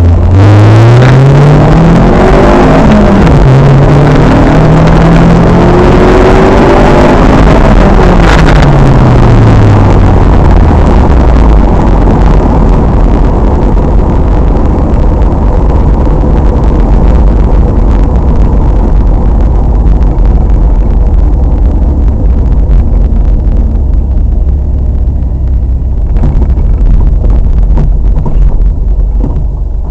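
A car engine accelerating hard at full throttle, its revs climbing in steps through quick gear changes. The revs then fall away as it backs off, leaving a loud steady rumble of road and wind noise.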